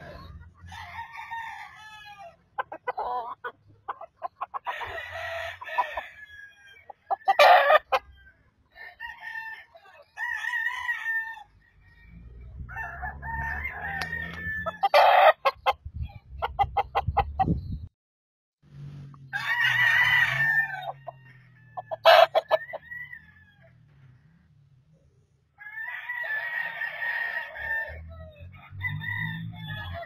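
Game roosters crowing several times, some crows loud, with runs of rapid clucking between them.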